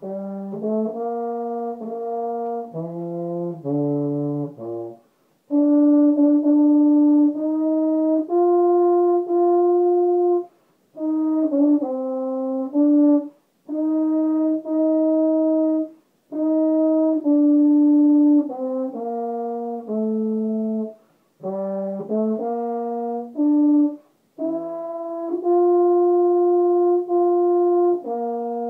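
Baritone horn played solo: a national anthem melody in held notes, phrase by phrase, with short pauses between phrases.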